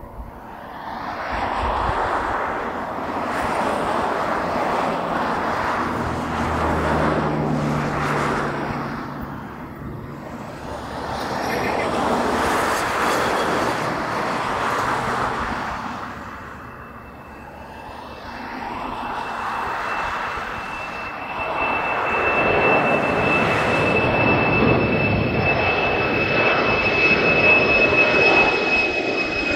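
FedEx Boeing 767-300F freighter's twin jet engines at takeoff power as it lifts off and climbs out: a jet roar that swells and dips in waves. A steady high-pitched whine joins about halfway through, and the sound is loudest near the end as the jet passes overhead.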